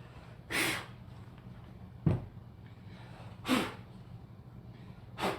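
Three short puffs of breath about two seconds apart, each falling away quickly, with a single sharp knock between the first two, over a steady low hum.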